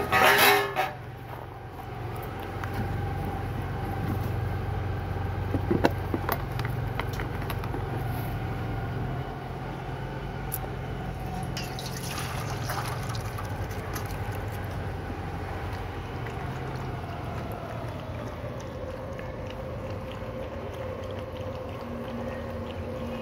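Milk poured from a plastic container into a steel bowl about halfway through, with puppies lapping from the bowl and small clinks of the metal, over a steady low hum. A loud sudden clatter in the first second.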